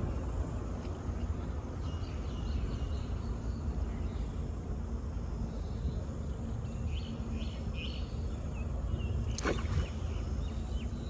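Steady low rumble of outdoor background noise with a few faint bird chirps in the second half. A single sharp click or knock sounds about nine and a half seconds in.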